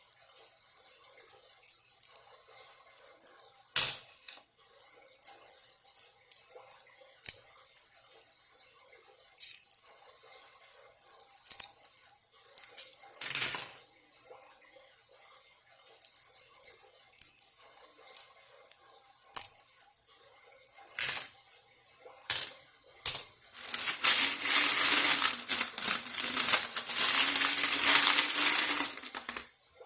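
Loose coins clicking and clinking one after another as they are sorted by hand. Near the end comes about six seconds of dense, continuous noise that cuts off suddenly.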